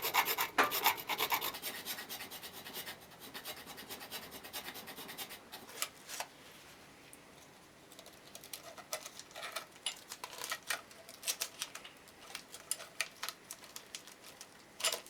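Hand file rasping back and forth on a steel engine stud, taking it down where it fouls the camshaft lobes. Fast, heavy strokes for the first few seconds, then lighter, more spaced strokes after a short pause.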